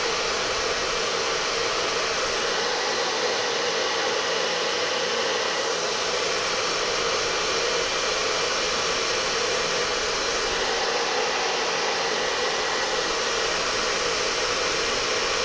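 Steady rush of a strong blown air stream, with a long-sleeve cotton T-shirt flapping in it.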